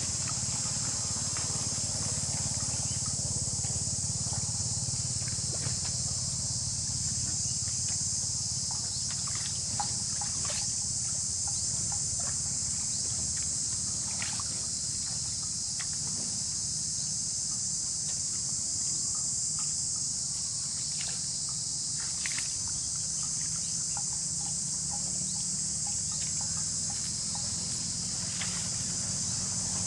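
Steady high-pitched insect chorus drone, over a low steady rumble, with scattered short crisp clicks now and then.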